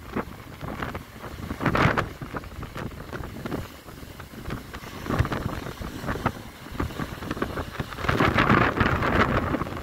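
Rough sea waves crashing and surging against a concrete sea wall, with wind buffeting the microphone. The surf swells loudest about two seconds in, again around five seconds, and longest near the end.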